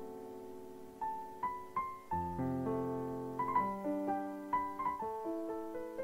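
Slow piano music: single melody notes struck one after another over held chords, with a low chord struck about two seconds in.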